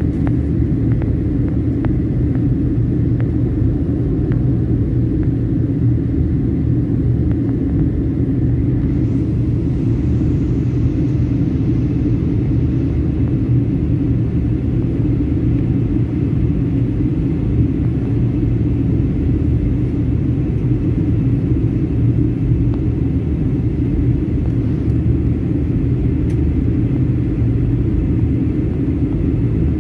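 Steady low rumble inside the cabin of a Boeing 737 MAX 9 on descent: the noise of engines and airflow heard from a window seat over the wing.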